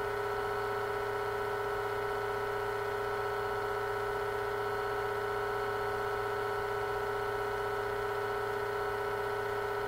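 Steady electrical hum and hiss with several fixed pitches held at one level, with no event standing out.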